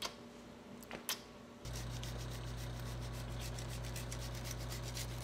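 A wedge of hard cheese grated on a handheld rasp grater, starting about a second and a half in. The grating makes quick, even rasping strokes over a steady low hum.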